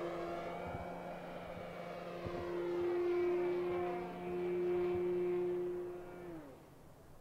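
Electric motor and APC 12x8 propeller of a Hangar 9 P-47 Thunderbolt RC model on 6S power, flying overhead: a steady, even-pitched drone that swells twice as the plane passes. Near the end it falls in pitch and dies away.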